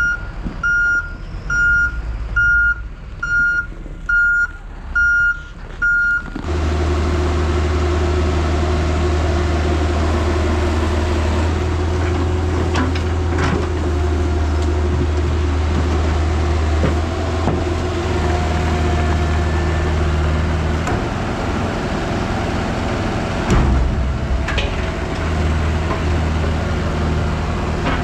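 Heavy equipment's reversing alarm beeping steadily, a little more than once a second, over a diesel engine. About six seconds in the beeping stops suddenly and a heavy diesel engine runs loud and steady, with a few knocks and rattles.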